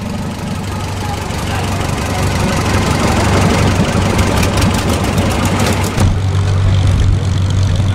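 Vintage Farmall tractor engine running slowly at low throttle as the tractor creeps past close by, growing louder as it nears. About six seconds in, the sound changes abruptly to a steady mix of old tractor engines running.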